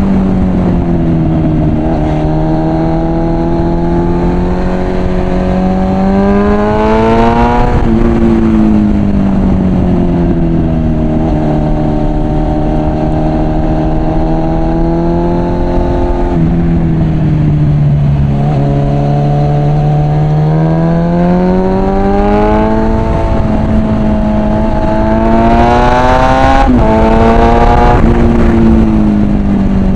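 Suzuki GSF 650 Bandit's inline-four engine through a Mivv aftermarket exhaust, heard on the move. The revs climb and fall several times, with sudden jumps in pitch at the gear changes, and there is a steady rush of wind.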